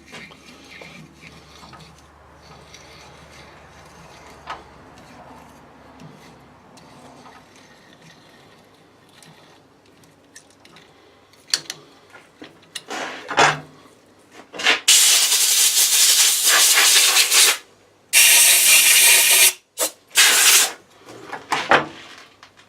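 Two long, loud hissing blasts from a pressurised jet, the first about two and a half seconds long and the second about a second and a half, starting some fifteen seconds in, with short spurts after them. Before and after come a few light knocks of metal tools being handled.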